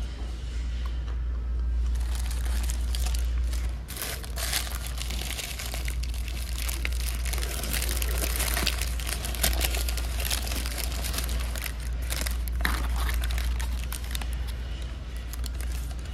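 McDonald's paper hamburger wrapper being unwrapped by hand: a run of crinkling and crackling paper starting about two seconds in and easing off near the end, over a steady low hum.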